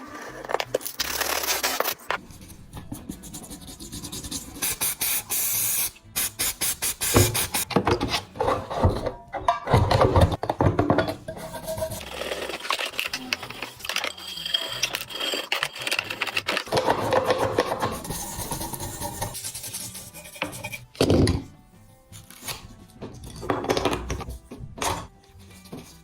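Hand work on a metal toy truck's parts: scraping and rubbing with scattered knocks and clicks, a steady hiss about four seconds in, over background music.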